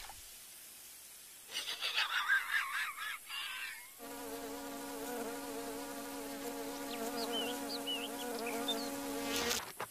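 Ladybug's wings buzzing in flight, a steady insect drone that starts about four seconds in and cuts off just before the end, with a few brief high chirps over it. Before the buzz there are short warbling squeaks.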